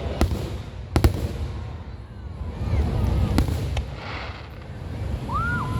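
Fireworks going off: a few sharp bangs and cracks, one about a second in and a pair a little past the middle, over a continuous low rumble, with a short whistling tone near the end.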